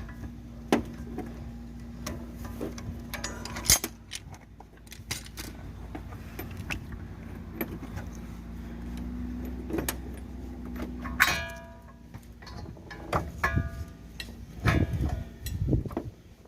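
Metal tools clinking and knocking as a gear puller is fitted and worked to pull the outer CV joint off the axle, with a sharp ringing metal clang about eleven seconds in and a run of knocks near the end.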